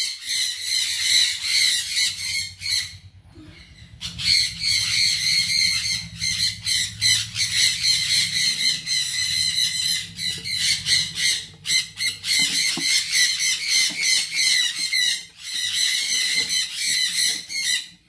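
Sun conures calling in a fast, continuous harsh chatter of short repeated squawks, with a brief lull about three seconds in.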